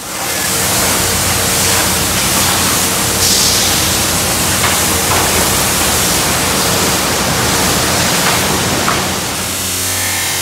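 Automatic car wash spraying foam soap and water onto a car's rear: a loud, steady hiss of spray hitting the body, with a low steady hum underneath. Near the end the hiss eases and the hum stands out more.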